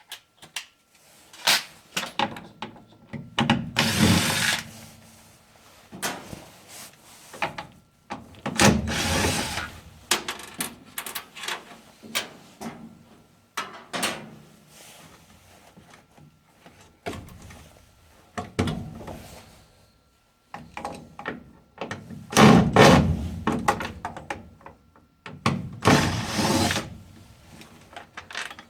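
Cordless drill run in several short bursts, backing out the screws that hold a furnace inducer motor, with clicks and knocks of the screws and metal parts being handled in between.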